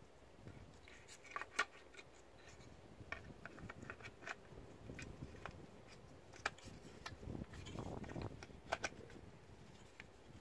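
Small clicks and taps of hard plastic parts being handled and pressed together: the fuel heater being fitted onto a new diesel fuel filter housing by hand. A short rush of noise comes about eight seconds in.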